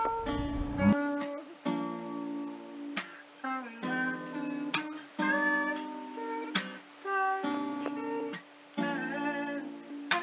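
Background music: a plucked guitar tune, note after note.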